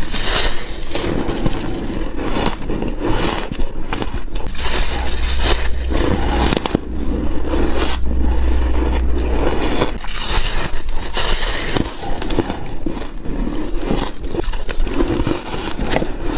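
Close-miked biting and chewing of freezer frost, dense squeaky crunching without a break. A low rumble runs underneath for a few seconds in the middle.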